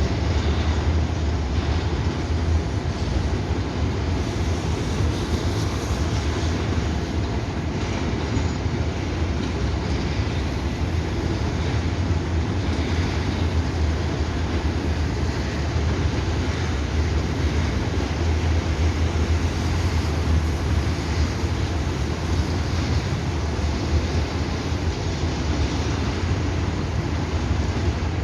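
Grain freight train rolling past on the rails, a loud, steady rumble of wheels and cars that holds throughout.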